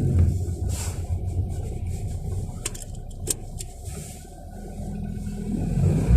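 A low rumble with a few sharp clicks near the middle. It fades and then swells again toward the end.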